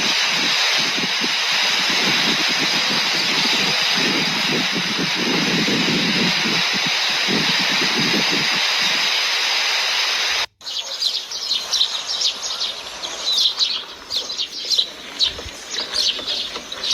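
A steady rushing noise that cuts off abruptly about ten seconds in, followed by birds chirping rapidly.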